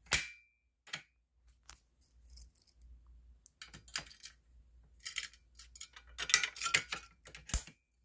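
Manual fire alarm pull station with a T-bar handle: the handle snaps down with one sharp metallic click, then a run of clicks and rattles as the station is opened and the handle reset, ending in a sharp knock.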